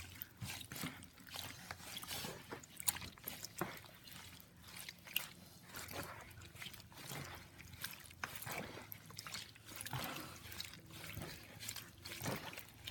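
Homemade slime being squeezed and mixed by hand in a bowl of liquid while it is still forming: irregular wet squishing, sloshing and small clicks.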